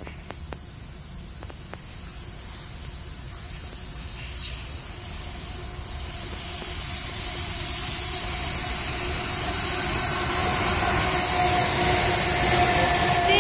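Approaching freight train, a steady rumble and hiss that grows louder throughout as it draws near.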